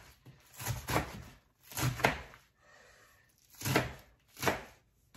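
Kitchen knife chopping napa cabbage on a cutting board: about five cuts, unevenly spaced, each a short crunching knock.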